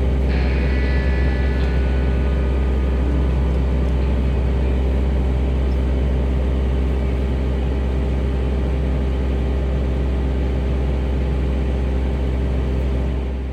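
Skid steer engine running steadily with a loud low hum. Near the end it drops to a quieter, lower run.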